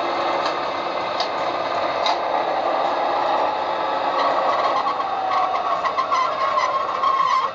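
Sound decoder of a Brawa HO-scale E95 electric locomotive model playing its running sound through the model's small speaker: a steady mechanical hum with tones that glide in pitch, and a few light clicks. It cuts off suddenly at the very end.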